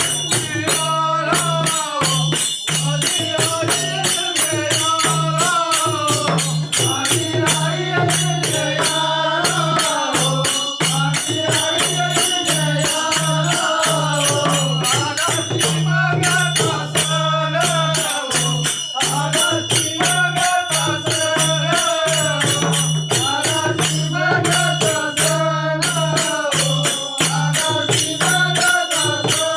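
Konkani khele folk song: a group of men singing together over a steady beat from a barrel drum and clashing hand cymbals.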